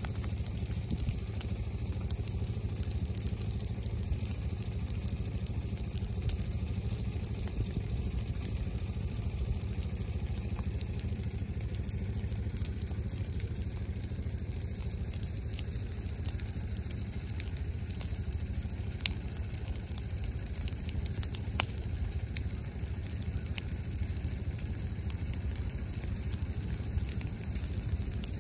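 Low surface fire burning through dry leaf litter and pine straw, crackling steadily with scattered sharp pops over a steady low rumble.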